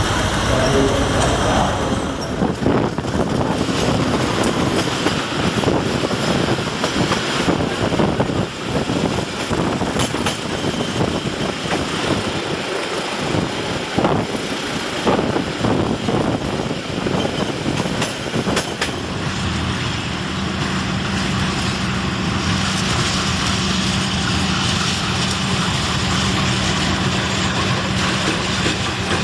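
Passenger train running past close by, wheels clattering and knocking over the rail joints. About two thirds of the way in, this gives way to a diesel-electric locomotive's steady engine drone as it hauls passenger coaches past.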